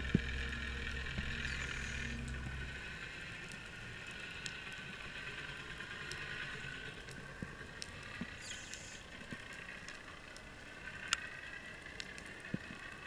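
Faint whine of a distant boat motor, several parallel tones slowly dipping and rising, with a low hum that stops about three seconds in and scattered sharp clicks.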